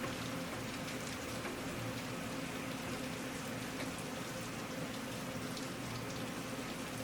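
Steady rain falling, with individual drops ticking on a surface.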